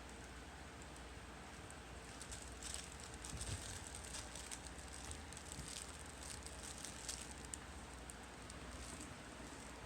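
Puppies moving about, their paws making faint, irregular clicking and scuffling over a low steady hiss.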